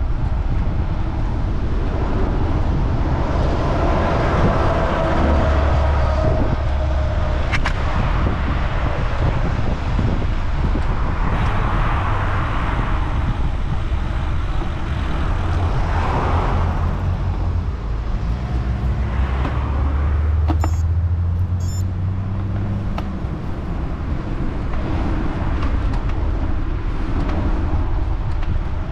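Road traffic passing a road bike on a main road: several motor vehicles swell up and fade away, some with a low engine drone, over a steady rumble of wind on the bike-mounted microphone.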